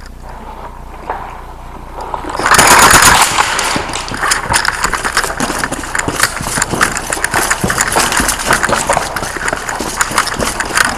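Airsoft gunfire in close quarters, starting about two seconds in: a loud whirring burst, then a dense, uneven clatter of rapid shots and BB impacts.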